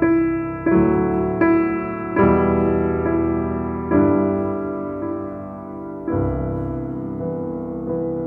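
Slow ambient piano music: chords struck every one to two seconds and left to ring out.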